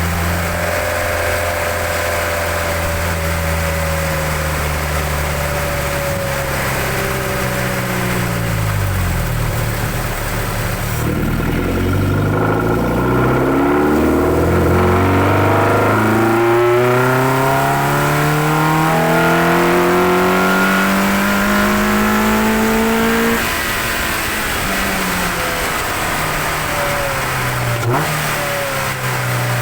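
Mazda MX-5 NC1's 2.0-litre MZR four-cylinder heard from under the bonnet, its loud intake noise coming through a cold air intake with aftermarket cams. It runs steadily, the revs drop back, then climb steadily for about twelve seconds under load before the throttle is closed and the revs fall away.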